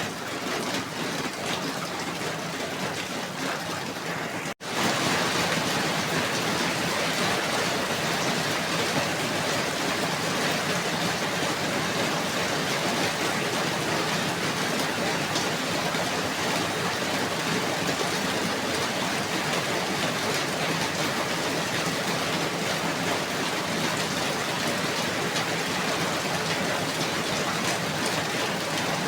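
Steady rainfall. It cuts out for a split second about four and a half seconds in, then carries on a little louder.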